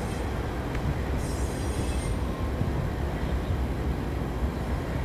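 Two GE Dash 9 (C44-9W) diesel-electric locomotives passing close by at the head of a freight train, a steady low rumble of their 16-cylinder diesels and the running gear.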